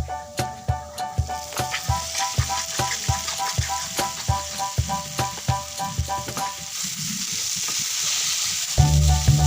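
Oil sizzling in a frying pan as martabak fries, over background music with a steady beat. The music drops out about seven seconds in, leaving only the sizzle, then comes back louder just before the end.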